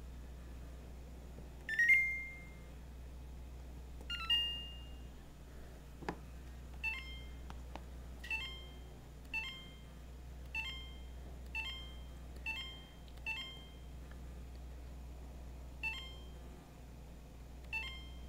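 Electronic beeps from a refrigerator's touch control panel as its buttons are pressed: two longer tones, a click, then a run of short beeps about once a second and two more near the end, over a steady low hum.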